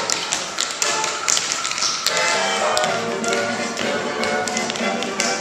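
Tap shoes clicking in quick, uneven runs on a wooden stage floor as dancers tap dance to recorded music.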